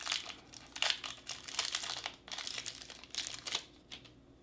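Foil-lined chocolate bar wrapper crinkling as it is peeled off the bar, an uneven run of crackles that stops about three and a half seconds in.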